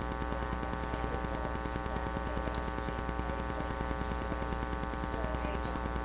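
Steady electrical hum and buzz, many tones stacked together, with a faint fast ticking running through it: mains hum picked up in the recording.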